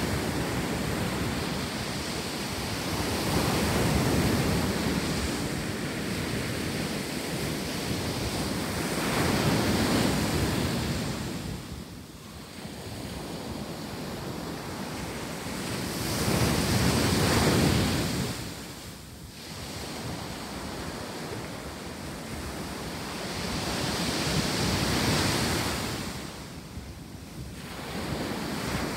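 Ocean surf breaking on a sandy beach, the wash rising and falling about every six to seven seconds, four surges in all.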